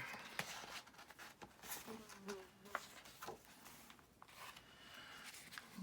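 Sheets of paper being handled and laid onto a stack: faint rustles, slides and light taps.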